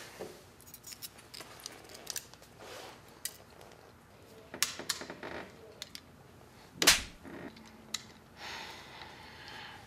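Quiet handling of glasses: small scattered clicks and rustles as a pair of plastic novelty glasses is passed over and fiddled with, with one sharper knock about seven seconds in.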